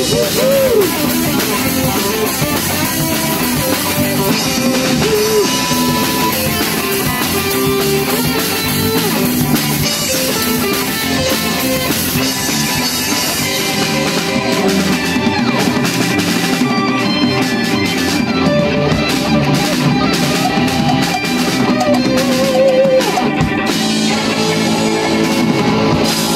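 A rock band plays an instrumental passage without vocals: electric guitars over a drum kit, with a lead guitar line that bends and wavers in pitch.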